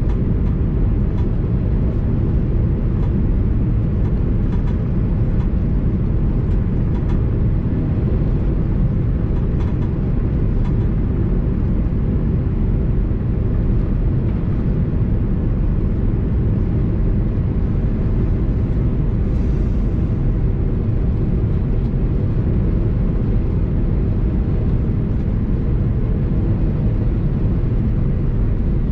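Steady low rumble of an Airbus A330-200 in flight, jet engine and airflow noise heard from inside the cabin, with a few faint clicks in the first several seconds.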